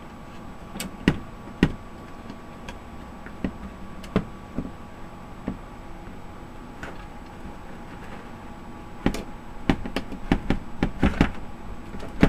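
Scattered clicks and knocks of a computer power supply's sheet-metal case, internal board and plastic wire connectors being handled and pried apart, with a quick run of clicks and rattles near the end.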